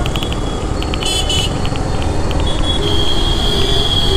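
Dense city traffic heard from a slow-moving motorcycle: steady engine and road rumble with vehicle horns beeping in short taps, and one horn held for a couple of seconds in the second half.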